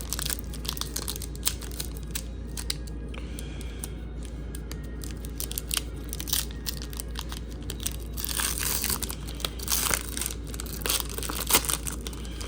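A trading card pack's wrapper being torn open and crinkled, with many small crackles and a denser stretch of tearing about eight to ten seconds in.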